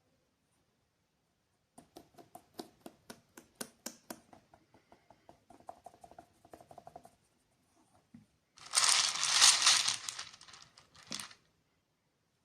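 Candy wrapper crinkling as it is handled: a run of quick, crisp crinkles and clicks, then a louder, dense crinkle lasting about two seconds, ending with a sharp click.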